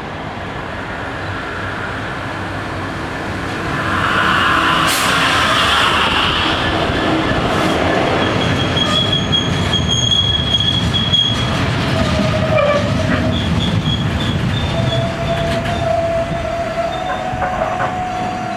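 A Class 66 diesel freight locomotive comes up and passes close by about four seconds in, its engine and wheels getting suddenly louder, followed by a long rake of ballast wagons rolling past with a continuous rumble and clatter on the rails. From about halfway through, steady high-pitched squeals ring out from the passing wagons' wheels.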